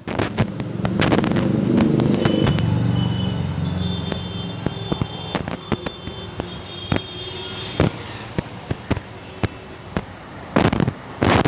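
Firecrackers going off in a series of irregular sharp cracks and bangs. A low rumble rises about a second in and fades by about four seconds, and a dense cluster of cracks comes near the end.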